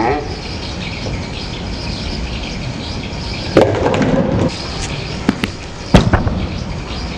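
Bowling alley sounds over a steady low rumble: a clattering crash about halfway through, two short knocks, then a loud thud near the end as a bowling ball is released onto the wooden lane.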